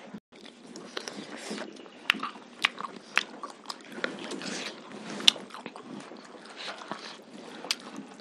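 Close-miked chewing and crunching as several people eat pork curry and rice, with sharp crunchy bites scattered among the steady chewing.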